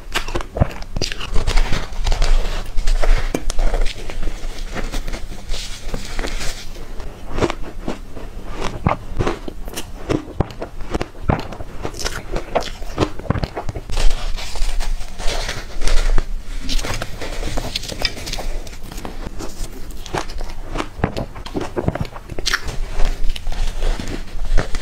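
Close-miked eating sounds: bites into crumbly green-powder-coated blocks flecked with pink petals and chewing, a dense run of many short sharp clicks.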